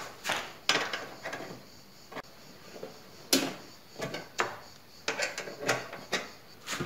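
Irregular metallic clicks and knocks of a spanner and bolts against the table saw's sheet-metal extension table as its support brackets are fitted and tightened, with two louder knocks a few seconds in.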